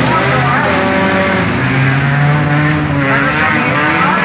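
Engines of several junk race cars running hard as they race past, their pitch rising and falling as they rev, mostly in the last second or so.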